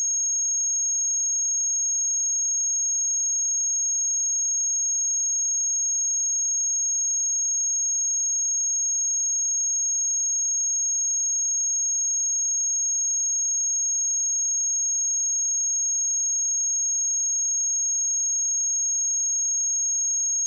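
A steady, high-pitched 6533 Hz sine-wave test tone, one pure unchanging pitch held at a constant level.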